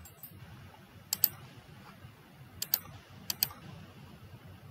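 A few sharp computer clicks from a mouse and keyboard, most of them in quick pairs, over a faint steady background hum.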